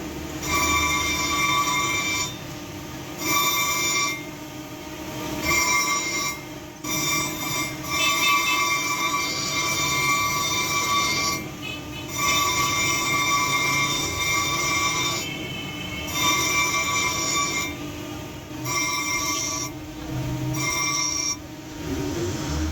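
High-pitched squealing, a steady tone with overtones, coming in repeated spells of one to three seconds with short breaks between, typical of a workshop machine working on metal.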